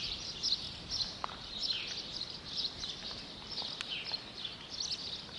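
Quiet village-street ambience: small birds chirping over and over, high-pitched, against a faint background hiss.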